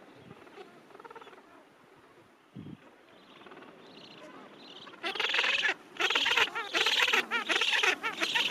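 Gentoo penguins calling: faint distant calls at first, then about five seconds in a loud, close run of rapid pulsed calls in several bursts with short breaks.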